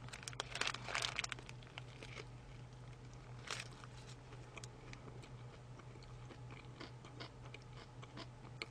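A person biting into a chicken burger and chewing: crunchy bites in the first second or so, then quieter chewing with scattered faint clicks and one more crunch a few seconds in.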